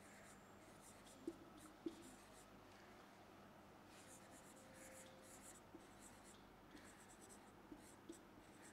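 Marker pen writing on a whiteboard: faint scratching strokes, with two sharp taps of the tip on the board between one and two seconds in and lighter ticks later.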